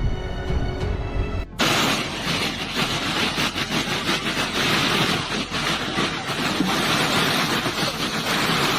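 Background music, broken off about a second and a half in by a loud, dense rushing noise that runs for about seven seconds and then cuts off suddenly.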